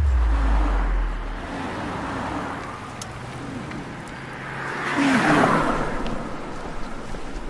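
City street traffic: a deep low boom at the start fades over about a second and a half into steady traffic noise. A vehicle passes, loudest about five seconds in.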